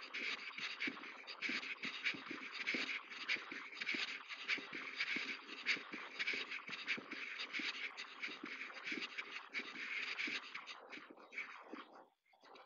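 Footsteps crunching on a gravel path, a dense irregular crackle that stops near the end.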